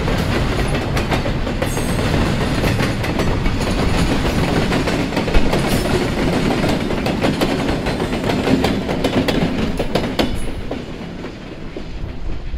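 Double-stack container train's well cars rolling past with repeated clicks of wheels over rail joints, followed by the rear diesel locomotive going by; the sound falls away about eleven seconds in as the end of the train passes.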